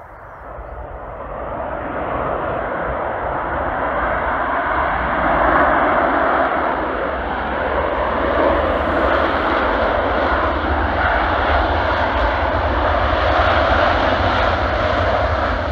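Airbus A330-200 freighter's Rolls-Royce Trent 700 turbofans during the landing rollout. A loud, steady jet roar with a low rumble beneath swells over the first few seconds, then holds.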